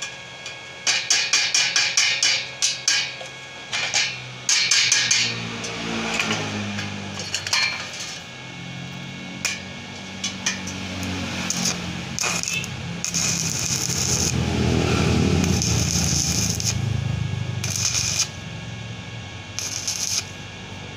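Stick-welding arc on galvanized square steel tubing, crackling and sputtering in bursts as the electrode is struck and run along a frame joint. The crackle is densest in the first few seconds, and a low hum runs under it through the middle.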